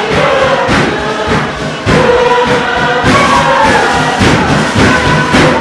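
Tuvaluan fatele: a large group singing together in chorus over loud, regular beats struck on a wooden box drum.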